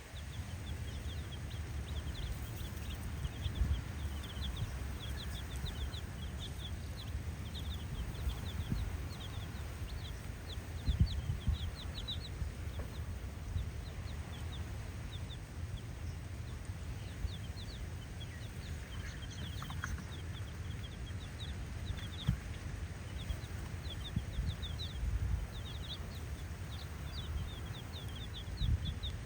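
A group of domestic chicken chicks peeping: many short, high, falling chirps, several a second, coming in flurries, over a low rumble with a few soft knocks.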